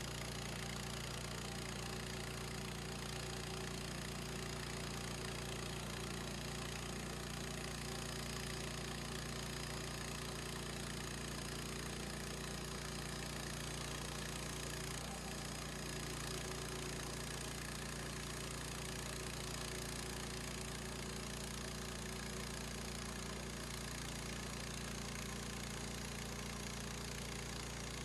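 The gas engine of a Harbor Freight bandsaw sawmill running steadily while the mill cuts boards from a log.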